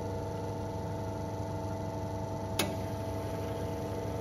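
Ferratti Ferro FCM-3243 Le Gazzio Doppio espresso machine's pump humming steadily at the start of an espresso shot, before coffee begins to flow from the portafilter spouts. A single sharp click comes about two and a half seconds in.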